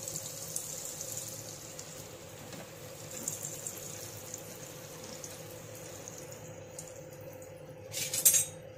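Butter sizzling in a nonstick pan under toasting sandwiches: a steady fine crackling hiss over a faint steady hum. A brief louder burst of noise comes near the end.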